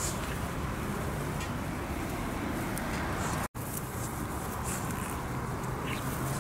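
Steady low outdoor rumble, with faint rustling and crackling of dry grass as a kitten wrestles a gloved hand. The sound cuts out for an instant about halfway through.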